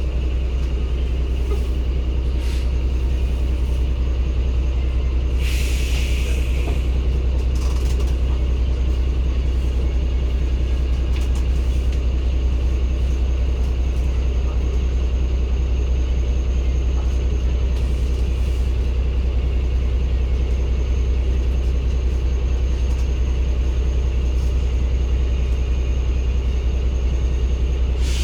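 Daewoo BS090 city bus's Cummins ISB six-cylinder diesel engine (Euro 6, 280 PS) running steadily with a deep, even rumble. A short air-brake hiss comes about six seconds in.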